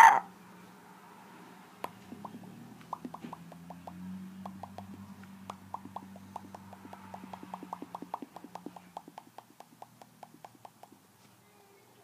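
Tongue clicks, sparse at first, then settling into a quick, even clip-clop rhythm of about five a second, over a faint low hum. The clicks thin out and stop near the end.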